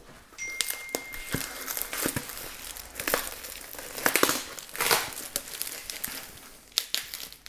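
Plastic packaging around a new windscreen crinkling and rustling in irregular bursts as it is handled and unwrapped by hand, with a few sharp clicks.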